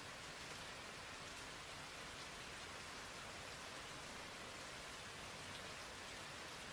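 Steady rain ambience, an even patter of rain with no change throughout.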